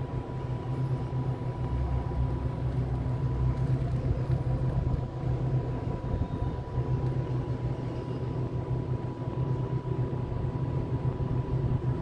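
Steady low hum with a thin, high whine held throughout, from electric locomotives standing in a freight rail yard.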